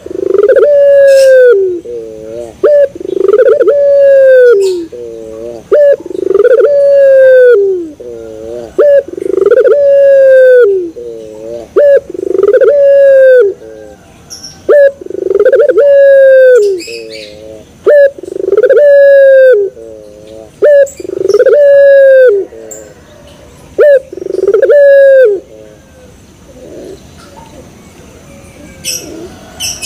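A young ringneck dove (puter pelung, three months old) cooing over and over, one loud, long coo about every two seconds with a wavering, rolling note between coos. The cooing stops about 25 seconds in.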